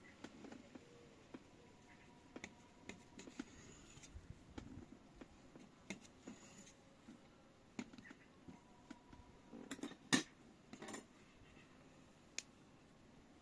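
Faint scattered clicks and taps of a knife on a steel tray as a ball of bread dough is cut into pieces, with a sharper clink about ten seconds in.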